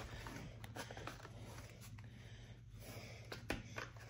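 Faint rustling and light clicks of cards and clear plastic dice trays being handled and fitted together, with one sharper click about three and a half seconds in.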